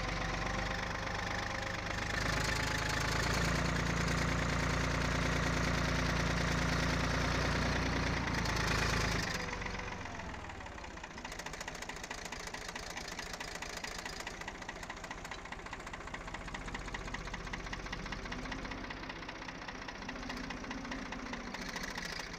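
An engine running, louder for the first nine seconds or so, then dropping to a lower, steadier level with a fine, rapid ticking.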